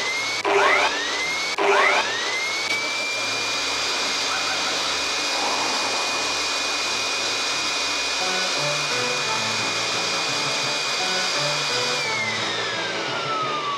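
Handheld electric blower (leaf blower) motor with a whine that spins up twice in quick succession near the start. It then runs steadily with a rush of air blasting at close range. About twelve seconds in it is switched off, and the whine falls away as the motor winds down. Quieter background music plays underneath.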